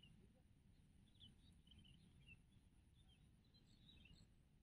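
Near silence, with faint bird chirps scattered through it.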